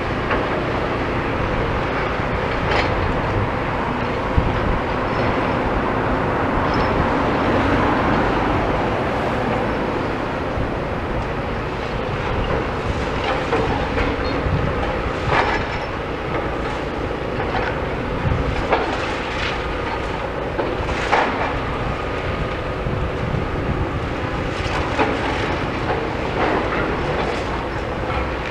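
Demolition excavators at work: a steady engine and hydraulic drone, with irregular sharp clanks and cracks as concrete and its steel rebar are broken up.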